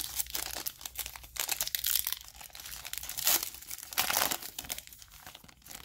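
Foil wrapper of a 2020 Sage Hit Premier Draft football card pack crinkling and tearing as it is pulled open by hand, in a run of irregular crackles with the loudest bursts past the middle.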